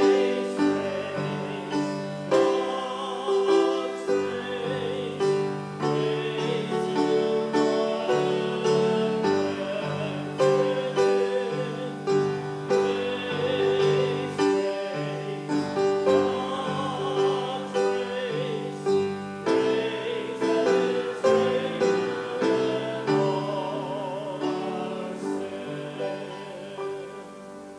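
Live music: a solo melody with vibrato over a struck-note accompaniment, the last notes dying away at the end.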